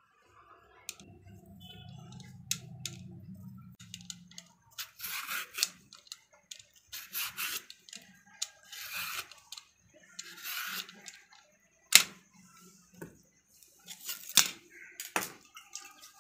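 A vegetable peeler scraping the skin off a raw green banana in repeated strokes, about one every second and a half, followed by a few sharp clicks near the end.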